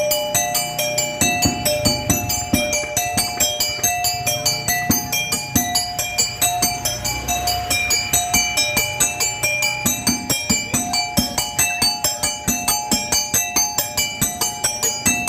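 Music: a fast, tinkling chime-like melody over a steady pulse of about four to five beats a second.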